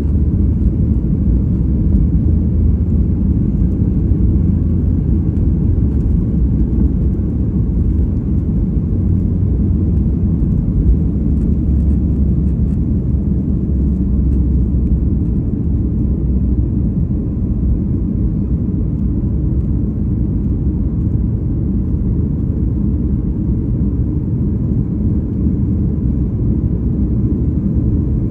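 Steady low rumble of an airliner's jet engines and rushing air, heard from inside the passenger cabin.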